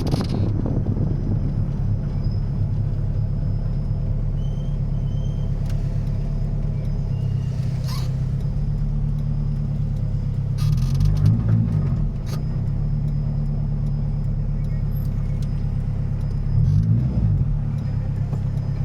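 Turbocharged Honda B16 four-cylinder engine idling steadily, blipped briefly twice, with the pitch rising and falling back each time.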